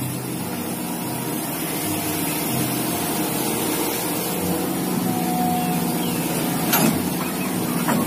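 Diesel engines of an excavator and a dump truck running steadily as the excavator loads sand into the truck bed, with one short sharp knock about seven seconds in.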